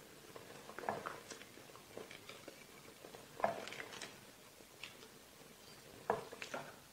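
Wooden ladle scooping thick daal from an earthenware pot and pouring it into a bowl: faint wet slops and a few soft knocks of wood against the pot, the clearest about three and a half and six seconds in.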